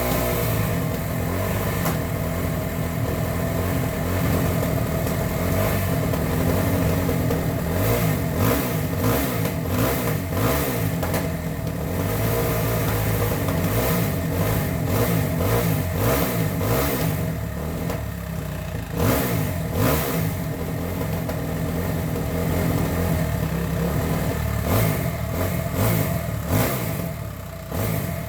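Two-stroke dirt bike engine of a KTM 300 XC TPI running, revving up and dropping back as the bike picks its way over rocks. Scattered knocks and clatter come through from time to time.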